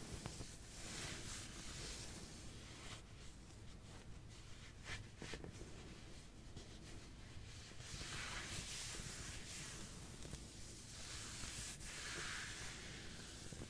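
Soft ASMR back-scratching sounds: quiet scratching and rubbing strokes that swell and fade every second or two.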